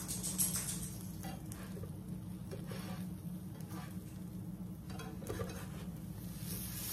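Grilled cheese sandwich sizzling softly in an oiled nonstick frying pan, with a slotted spatula scraping under it and shifting it a few times, over a steady low hum.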